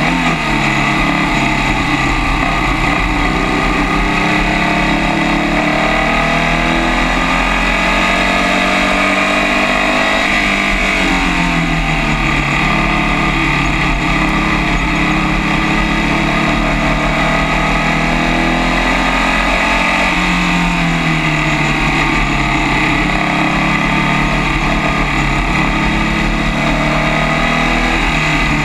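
Onboard sound of a Formula First race car's air-cooled Volkswagen flat-four engine at racing speed: its pitch climbs steadily on the straights and falls back about ten and twenty seconds in as the car slows for corners, then climbs again. A constant rush of wind and road noise runs underneath.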